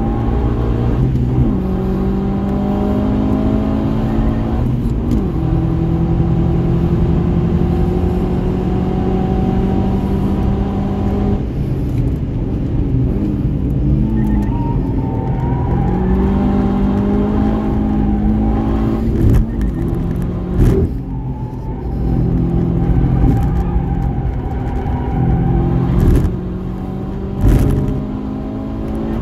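Subaru Impreza WRX STi's turbocharged flat-four engine at track pace. It revs up through the gears with a break and drop in pitch at each shift, then falls away under braking. A few short, sharp bangs come in the second half.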